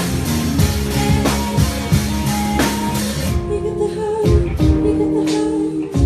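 Live pop-rock band playing: female lead vocals into a microphone over a drum kit, electric guitar and bass guitar, with a steady drum beat. About three seconds in the bright top of the sound thins out, leaving held sung notes over the drums and bass.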